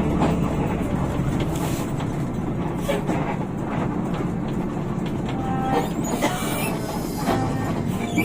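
Hino RK8 bus under way: a steady low rumble from its rear-mounted diesel engine and the road, with frequent small rattles and clicks throughout.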